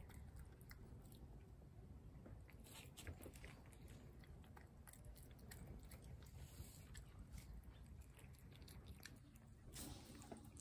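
Feral tabby cat eating wet food from a plate: faint, irregular chewing and lip-smacking clicks.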